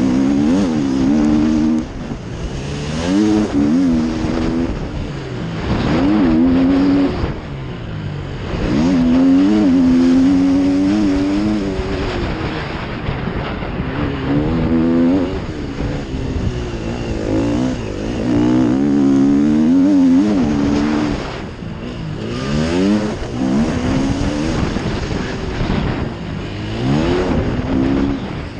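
KTM motocross bike engine heard from on board, revving up in pitch under hard throttle, then dropping back as the throttle closes, over and over through the lap's straights, jumps and bends.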